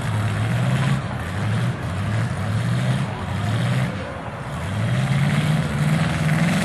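Demolition derby car engines revving hard as the cars push against each other, the pitch rising and falling and climbing steadily near the end.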